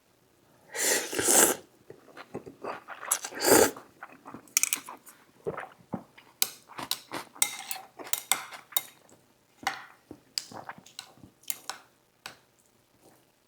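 Close-miked eating: chewing and mouth sounds, with utensils clinking against dishes. There are two longer noisy bursts, about a second in and again around three and a half seconds, among many short clicks.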